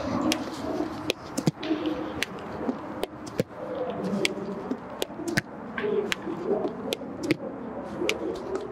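A baseball smacking into a leather fielder's glove again and again as short tosses are caught in an infield drill, a sharp pop each time. A cooing bird is heard underneath.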